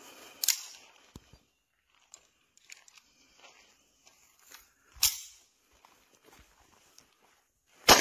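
Clicks and clacks of a pistol being loaded and readied, with two louder metallic clacks about half a second and five seconds in, followed right at the end by a single 9 mm short (.380 ACP) pistol shot, the loudest sound.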